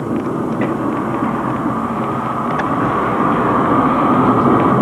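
Horror film sound effects: a steady, dense rumble that grows a little louder, with a few faint clicks over it.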